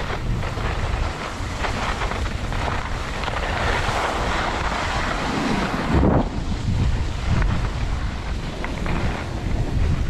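Wind buffeting an action camera's microphone while skiing downhill, a low rumble under the hiss of skis sliding over packed snow. About six seconds in the hiss drops away and a louder gust of buffeting comes through.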